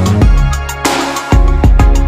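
Electronic background music with deep bass and a steady drum beat.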